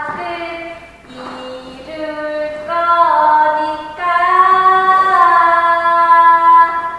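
A woman singing a melody with little or no accompaniment: a run of short notes, then one long held note from about four seconds in that stops just before the end.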